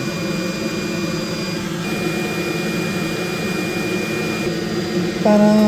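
Hot air rework station blowing a steady rush of air with a thin high whine while it heats a USB 3.0 port to desolder it from a hard drive's circuit board. Near the end, a loud held vocal note cuts in over it.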